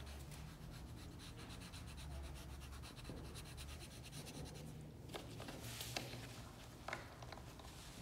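Dry pastel stick rubbing on drawing paper in many quick strokes, faint, with a few light knocks about five to seven seconds in.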